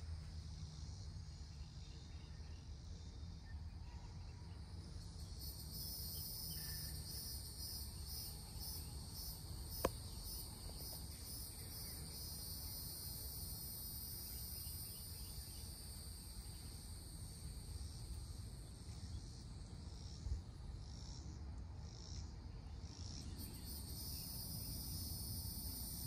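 Insects trilling steadily in high, pulsing bands over a faint low rumble, with one sharp click about ten seconds in.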